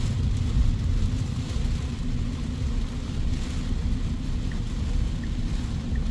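Low, steady rumble of tyres on a wet road and rain, heard inside the cabin of a Tesla Cybertruck, an electric truck, driving at about 25 mph in heavy rain. About four and a half seconds in, a faint turn-signal ticking starts, about one tick every three-quarters of a second.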